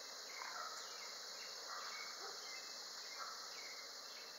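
Steady chirring of an outdoor insect chorus, such as crickets.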